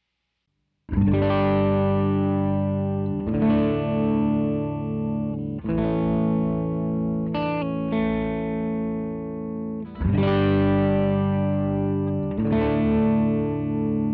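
Electric guitar played through a Line 6 POD 2.0 amp-modelling patch and recorded direct. After a short silence, about six chords are struck about a second in and then every two to three seconds, each left to ring until the next.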